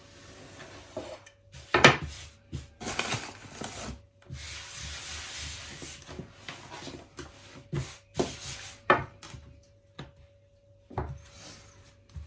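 Dough being rolled and worked on a wooden board: scraping, rubbing strokes broken by a few sharp knocks of wood on wood.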